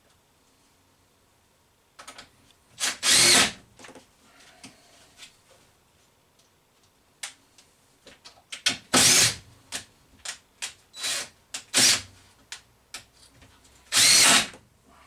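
Power drill driving screws in several short bursts of about half a second, four of them loud, with small clicks and knocks between.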